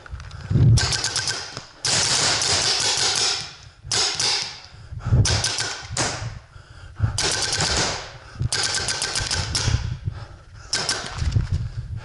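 Paintball marker firing fast strings of shots in about eight bursts, each half a second to two seconds long, with short pauses between them.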